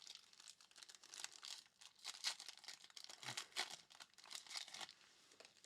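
Foil wrapper of a trading-card pack crinkling and tearing as it is handled and opened, in many short, irregular crackles.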